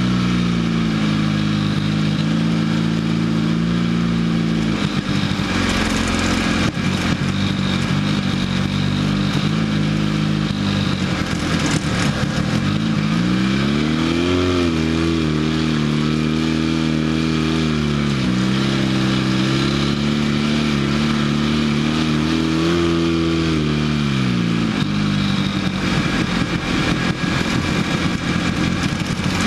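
Off-road vehicle engine running while driving across sand, with a steady rush of noise over it. The engine note holds steady at first, then revs up, eases, revs up again and drops back in the middle, and fades into the noise in the last few seconds.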